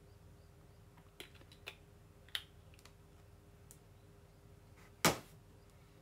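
A few light clicks, then one much louder sharp click or tap about five seconds in, over a faint steady hum.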